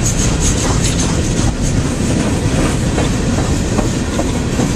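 Open-top coal cars of a CSX freight train rolling past: a loud, steady rumble of steel wheels on rail.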